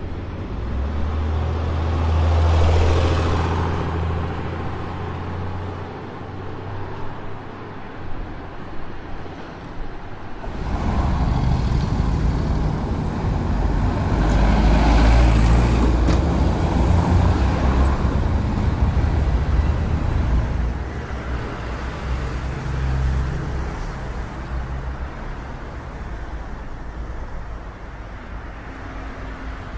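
City street traffic ambience: cars and heavier vehicles passing with a low engine rumble and road noise, swelling a couple of seconds in and turning heavier and louder from about ten seconds in.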